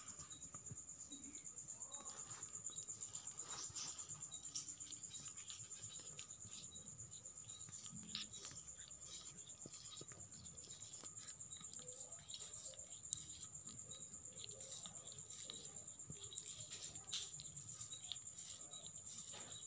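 Kitten licking its fur while grooming: faint, quick rhythmic licking with small clicks. A steady high-pitched whine runs underneath.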